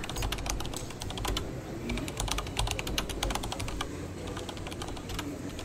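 Keyboard typing sound effect: a quick, irregular run of key clicks, over the steady low hum of a large airport terminal.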